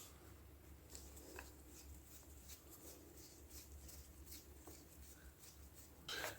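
Near silence: room tone with a few faint, small clicks.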